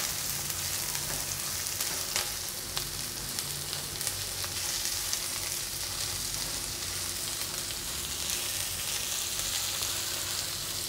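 Diced carrots and green capsicum sizzling steadily in hot oil in a kadai as they are stir-fried with a silicone spatula, with a few taps of the spatula against the pan.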